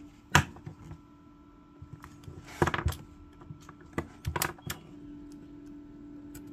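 Sharp clicks and rattling clacks of a spring-loaded wire stripper being worked and of wires and tools being handled on a wooden bench. One loud click comes just after the start, a rattling cluster follows about two and a half seconds in, and a few more clicks come around four seconds in.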